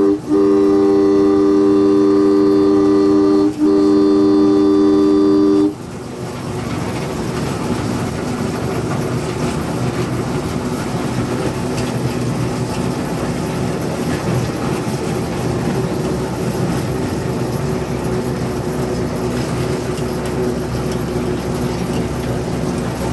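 Gemco locomotive's horn sounding one long blast, with two brief breaks, that cuts off about six seconds in. The locomotive and train then run on steadily as they pull away.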